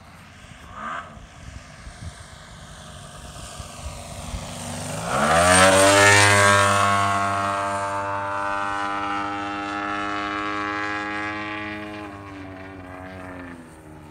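Propeller-driven RC racer with a gas engine and a JetCat 80 turbine aboard, making a low pass. The engine note swells sharply to its loudest about six seconds in, holds a steady drone, then fades near the end.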